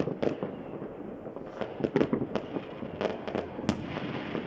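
Many New Year fireworks going off at once in all directions: a rapid string of sharp bangs and pops over a steady background crackle, with the thickest clusters about a second and a half in and again about three seconds in.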